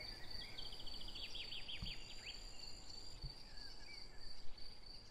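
Outdoor summer ambience: a steady high-pitched insect trill throughout, with a bird singing a quick run of descending notes about a second in and a few faint calls around it.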